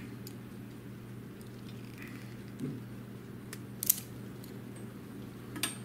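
Hand wire stripper clicking as it grips and strips the insulation off a 12-gauge wire: two sharp clicks, one just before the four-second mark and one near the end, over a steady low hum.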